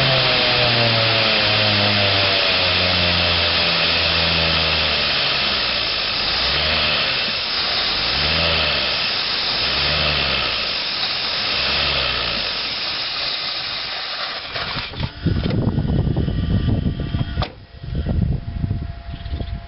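Loud background music with a stepping bass line, which stops about three-quarters of the way through; it is followed by irregular low rumbling bursts and a few sharp knocks.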